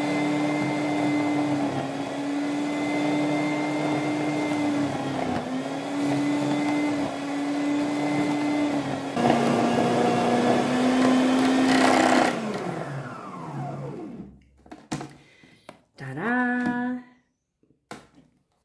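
Walita food processor motor running with a steady hum while grating chunks of potato and onion through its grating disc; the pitch dips briefly a few times as pieces are pushed in, then drops lower with a louder grinding rasp about nine seconds in. It is switched off about twelve seconds in and winds down, followed by plastic clicks and knocks as the lid and bowl are handled.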